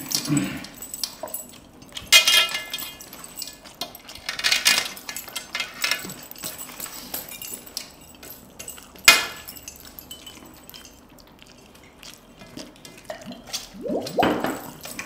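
Hands scooping rice off stainless steel plates, with fingers and metal rings scraping and clinking against the metal. There are a few brighter ringing clinks and one sharp click about nine seconds in.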